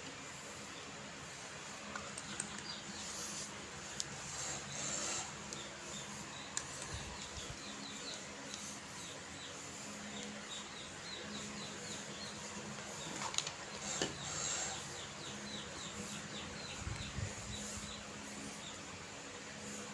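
Soft rubbing and shuffling of hands massaging a person's body, with a few small knocks. Runs of small, quick bird chirps sound in the background twice, a few seconds in and again in the second half.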